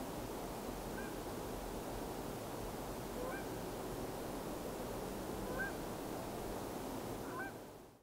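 Short bird calls, four or five of them a couple of seconds apart, over a steady outdoor hiss. The sound fades out at the very end.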